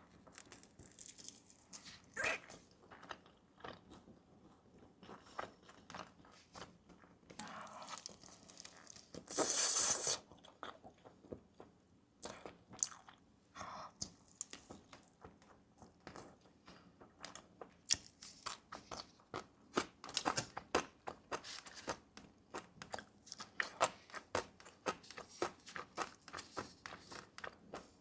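Close-miked eating: a run of crunchy bites and chewing, with many short crackles and one louder noisy burst of about a second, some nine seconds in.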